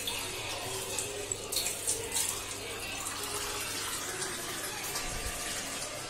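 Kitchen tap running, water filling a cup at the sink, with a few short clinks about two seconds in.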